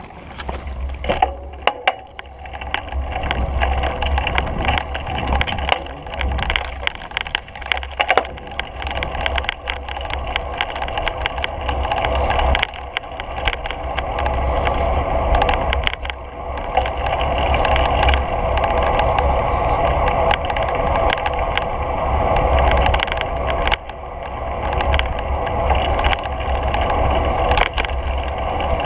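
Bicycle riding along an asphalt path: steady tyre and rolling noise with frequent small clicks and rattles from the bike, and heavy wind rumble on the microphone.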